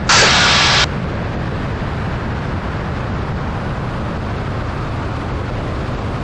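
Steady drone of the Cessna T310R's twin engines during the landing rollout. Near the start, a loud burst of radio static cuts in suddenly and stops just under a second later.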